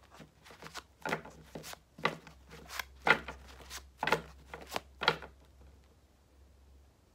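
A deck of gold-foil tarot cards being shuffled by hand, overhand style, the cards slapping and rustling in short bursts about once a second until they stop a little past five seconds in.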